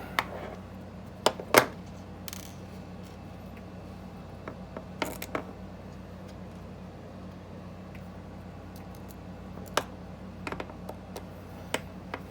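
Scattered sharp clicks and taps of small plastic and metal parts of a Daisy Powerline 426 BB pistol being handled and fitted together, the loudest about a second and a half in, over a steady low hum.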